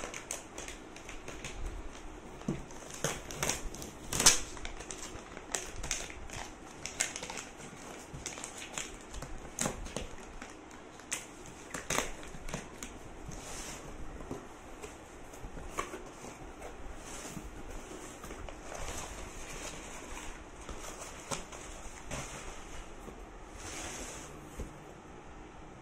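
Cardboard shipping box being opened by hand: flaps and packing tape scraping, rustling and crackling, with irregular sharp knocks, the loudest about four seconds in.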